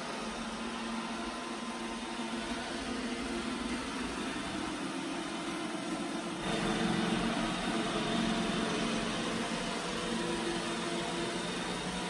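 iRobot Roomba i7+ robot vacuum running, a steady whir of its suction motor and brushes with a low hum, growing louder about six and a half seconds in.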